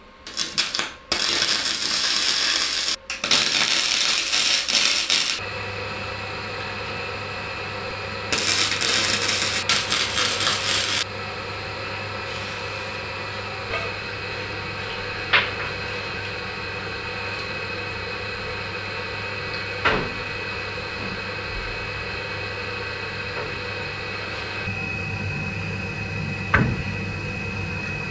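Power tool work: two loud stretches of cutting or grinding noise, the first lasting about five seconds and the second about three, followed by a steady motor hum with a few light clicks.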